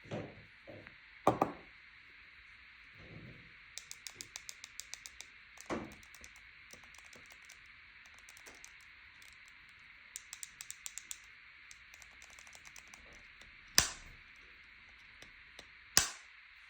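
Apple AirPods charging case lids being opened and snapped shut: four loud sharp clicks, with two quick runs of light ticking in between, over a steady hiss.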